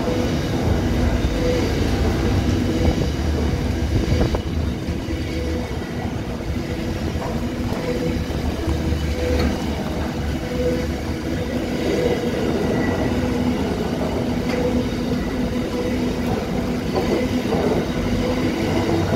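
Pacific National container freight train passing at speed, its wagons' steel wheels giving a steady running noise on the rails.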